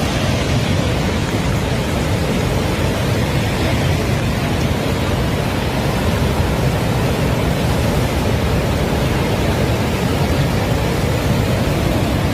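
Floodwater of a river in spate rushing, a loud steady noise without a break.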